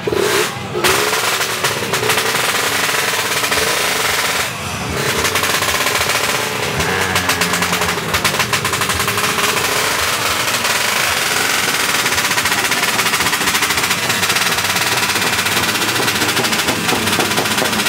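Racing motorcycle engines with open exhausts revving hard, a rapid staccato crackle whose pitch rises and falls.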